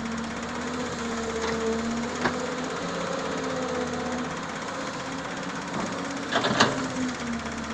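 Doosan 140 excavator's diesel engine running steadily, its pitch wavering slightly. Two sharp metallic knocks come near two seconds in, and a louder cluster of knocks comes near the end.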